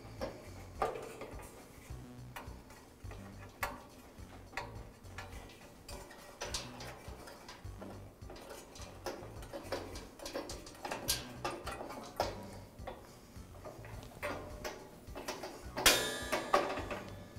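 Irregular light clicks and taps as igniter wires on a gas grill are pulled free of their wire clips and handled against the metal manifold, with a short rasping rattle near the end.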